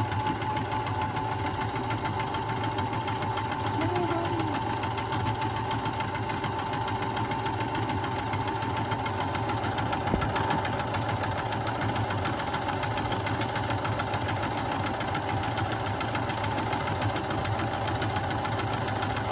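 Electric sewing machine running steadily at speed, its needle stitching a zigzag stitch through fabric.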